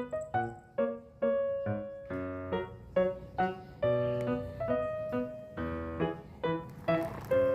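Background piano music, a melody of separate notes each struck and fading.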